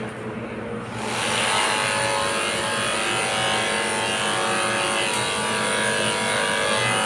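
Corded electric pet hair clipper running steadily as it is worked over a Pomeranian's coat, a steady motor hum that gets louder about a second in.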